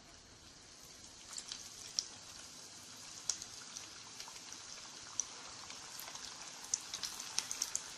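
Bread vadai batter balls deep-frying in hot oil: a steady sizzle with scattered crackling pops, growing louder as more balls go into the oil.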